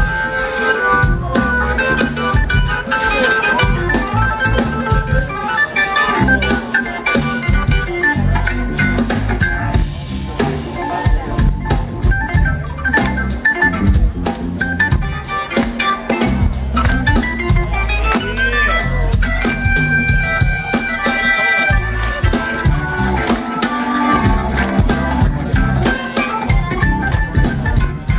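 Live blues-rock band playing, with a Hammond-style organ leading over drum kit and bass guitar.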